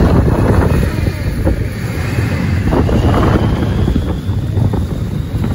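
Heavy wind buffeting the microphone on a banana-boat sled towed over snow at speed, with the towing snowmobile's engine running underneath.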